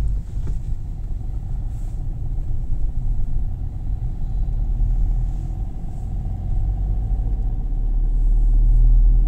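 Car driving, heard from inside the cabin: a steady low engine and road rumble that grows louder near the end.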